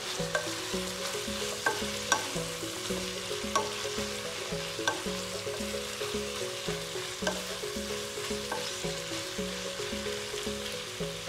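Chop suey vegetables and shrimp sizzling in a nonstick pot as they are stirred, with the utensil clicking against the pot every second or so. Soft background music with a repeating bass line plays underneath.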